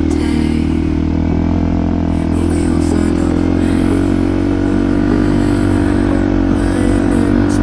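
Yamaha WR155R trail motorcycle's single-cylinder four-stroke engine running at a steady pace, its low note shifting slightly about six seconds in.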